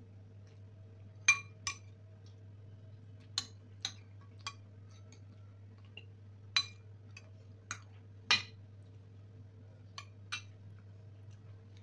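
A steel spoon clinking against ceramic plates and a bowl as curry is served: about ten sharp, ringing clinks at irregular intervals, several in quick pairs, over a faint steady low hum.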